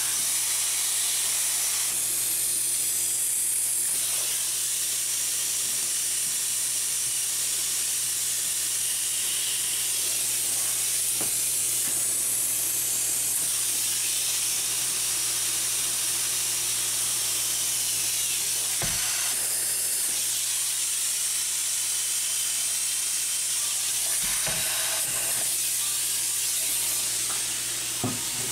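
Spray foam gun spraying insulation foam into a wall cavity: a steady high hiss, over a steady low hum.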